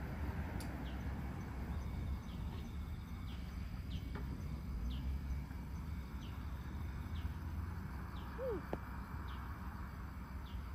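A bird repeating a short, high chirp about every three-quarters of a second, over a steady low outdoor rumble.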